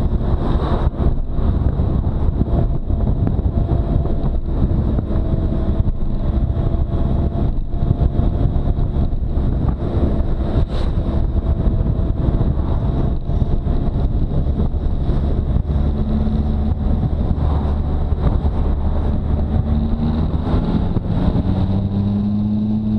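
Motorcycle engine running at road speed under heavy wind noise on the microphone. Near the end the engine pitch rises as the bike accelerates.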